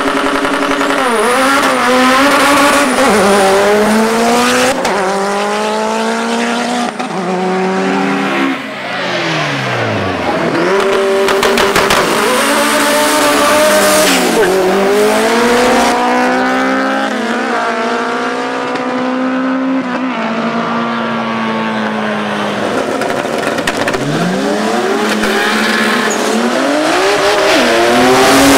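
Modified street cars launching down a drag strip, engines running hard and climbing through the gears, the pitch dropping back at each shift. Twice a car passes close, its pitch falling steeply as it goes by.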